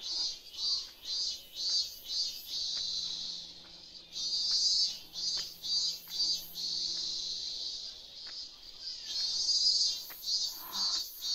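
Cicadas singing in pulsing phrases of about two or three pulses a second, alternating with stretches of steady high buzzing.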